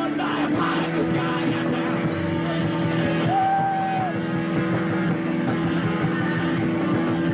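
Amateur rock band playing live through amplifiers on electric guitars, keyboard and drums, with a steady held tone underneath.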